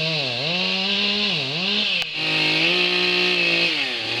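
Two-stroke chainsaw cutting wood, its pitch dropping twice as it bogs in the cut, then running at a steadier pitch in the second half.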